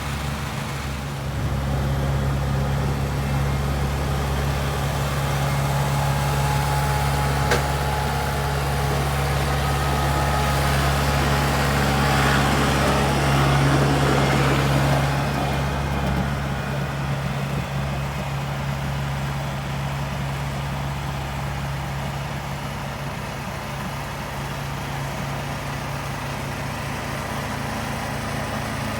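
Farm tractor engine running steadily with a low, even note. It grows louder from about a second in, stays up until about halfway through, then eases back a little.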